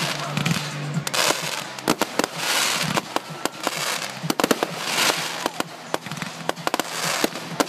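Fireworks going off: a rapid, irregular run of sharp pops and crackles over swelling hiss from burning sparks. A cluster of the loudest cracks comes about halfway through.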